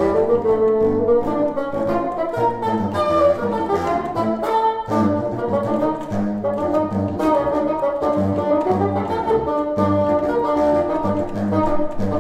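Bassoon and contrabassoon playing a duet: the contrabassoon holds a low line in repeated sustained notes beneath the bassoon's higher moving melody.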